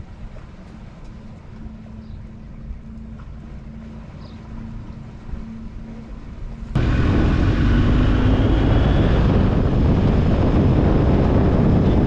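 Low wind rumble with a faint steady hum, then about two-thirds of the way in an abrupt switch to the loud, dense rush of wind noise and engine from riding a motorcycle along a road.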